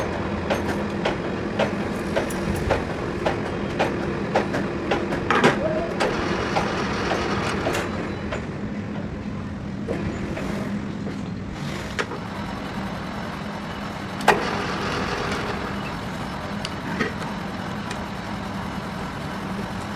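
Workshop machinery humming steadily, with frequent light metal clicks and a few sharper knocks as a metal lathe's tailstock and chuck are worked by hand with a chuck key.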